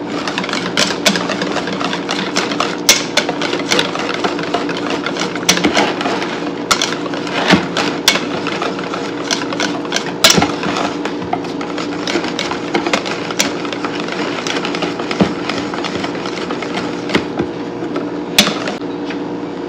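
Wire whisk beating batter by hand in a stainless steel bowl: continuous swishing and scraping with frequent sharp clinks of the wires against the metal, over a steady low hum.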